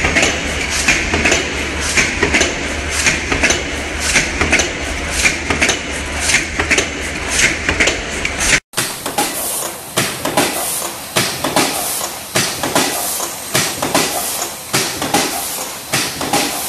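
Aluminium foil container production machinery running: the stamping press clanks at a steady repeating rhythm over a low hum. About halfway through it cuts to the conveyor and stacking section, with quicker repeated metallic clanks and clicks and no hum.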